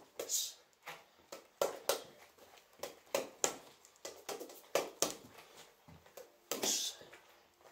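Red double-end bag being punched with bare fists: a quick, uneven run of slapping hits, about three a second, as the bag springs back on its cords between strikes.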